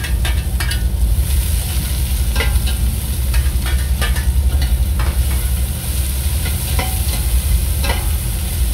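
Chopped onion, garlic and ginger sizzling in hot oil in a stainless steel pot while being stirred, with repeated clicks and scrapes of a spatula against the pot. A steady low hum runs underneath.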